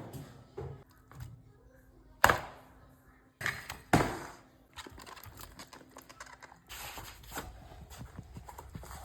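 A few sharp knocks with quiet between: two strong ones about two and four seconds in and a smaller one just before the second, then a low steady rustle from near seven seconds.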